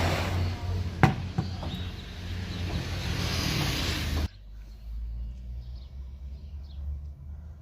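Motor vehicle running: steady engine and road rumble with a sharp knock about a second in. About four seconds in it cuts abruptly to a quieter, low rumble.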